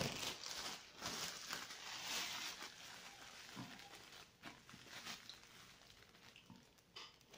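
Clear plastic bag crinkling and rustling as it is handled, loudest in the first couple of seconds and then fading to scattered small crackles.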